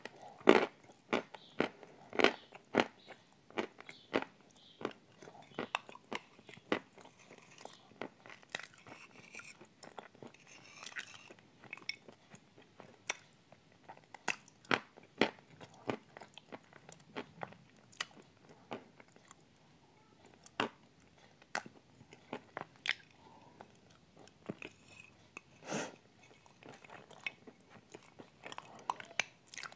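Close-up chewing and crunching as a thick creamy dessert with crunchy bits is eaten by spoon from a glass: a string of irregular sharp crunches, loudest near the start.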